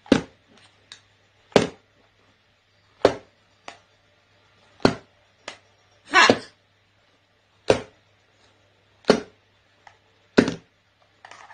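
Sharp knocks about every second and a half, with fainter clicks between, as a green-winged macaw handles a corded computer mouse with its beak and feet, knocking it against the laptop and desk.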